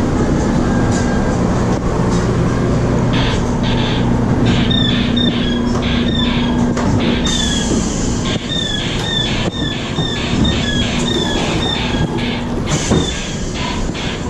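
Flooded Mine dark-ride running noise: a steady mechanical hum with a high, rhythmic squeaking about twice a second from a few seconds in, and a hiss in the middle stretch.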